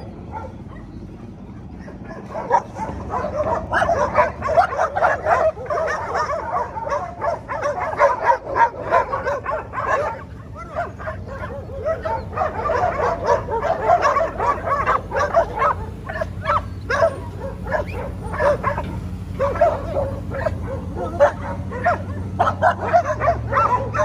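A pack of street dogs barking and yelping in a territorial stand-off between two groups, the barks coming thick and overlapping from a couple of seconds in, with a short lull midway.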